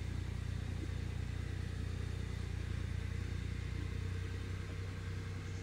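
A motor running steadily, a constant low-pitched hum.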